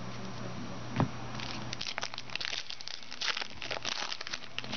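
Foil trading-card pack wrapper crinkling and crumpling in the hands. A single short tap comes about a second in.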